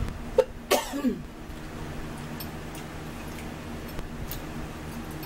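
A person coughs just under a second in, a short hack followed by a louder cough whose voice drops in pitch. After it comes a low steady room hum with a few faint ticks.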